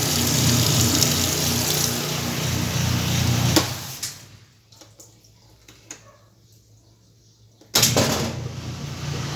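Whirlpool washing machine running, with rushing water over a steady motor hum. About three and a half seconds in it clicks and stops, leaving a few small clicks, then starts again abruptly near the end.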